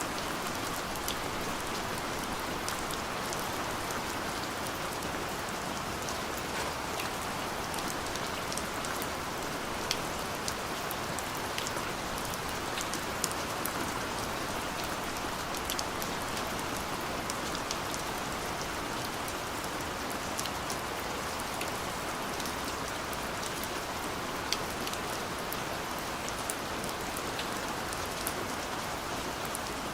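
Steady rain falling, a continuous even hiss with scattered sharp drop ticks.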